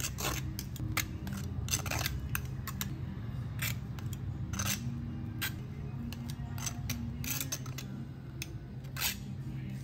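Irregular short clicks and snips of hands handling things at work, over faint low background music.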